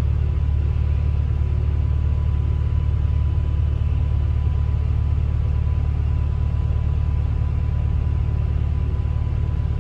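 A bus in motion, heard from inside: a steady low rumble with a faint constant whine.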